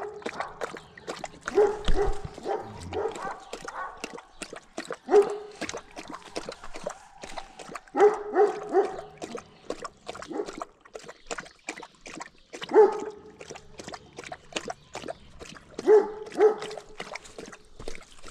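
A dog barking in short groups of two or three every three seconds or so, over a quick, steady run of wet lapping from a large livestock guardian dog drinking water.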